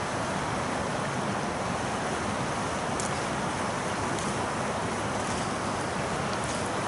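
Steady rushing of a river's flowing water, even and unbroken, with a few faint small ticks.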